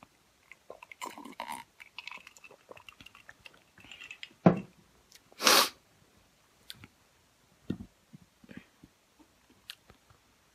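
Close-up mouth sounds of someone drinking and then eating: a swallow of soda, followed by chewing of hot wings with many small wet clicks. A sharp knock sounds about four and a half seconds in, followed at once by a short breathy rush.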